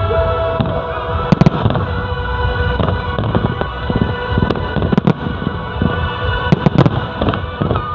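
Fireworks display: a rapid, irregular series of sharp bangs and crackles from shells bursting, over a continuous low rumble.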